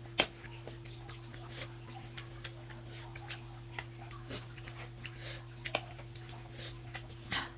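Eating sounds of a mukbang: scattered small clicks and smacks while eating momos, with one sharp click just after the start, over a steady low electrical hum.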